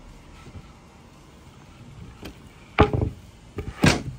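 Wooden knocks as a freshly cut piece of benchwork board is set and tapped into place around a support column: quiet at first, then three sharp knocks in the last second and a half.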